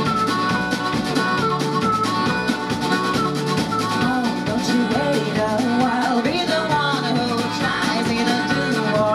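Live band of harmonica, double bass, guitar and drum kit playing a jazz-blues number, with the harmonica's held notes on top. A woman's singing voice comes in about halfway through.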